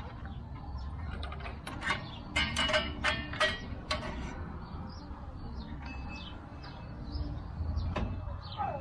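Steel brake return spring and long-nose pliers clinking against rear drum-brake shoes and hardware as the spring is worked into place. A cluster of sharp metallic clinks with brief ringing comes between about two and three and a half seconds in, followed by fainter scattered ticks.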